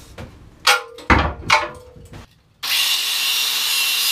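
A few sharp clanks, one ringing briefly, then about two and a half seconds in an angle grinder starts running steadily with a high whine, grinding metal on the old engine.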